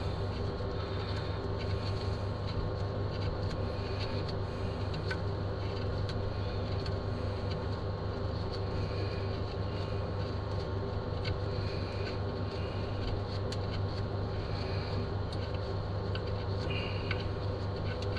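A steady low mechanical hum, with faint scattered metal clicks and taps as the chain adjuster bolts are unscrewed out of a dirt bike's swingarm.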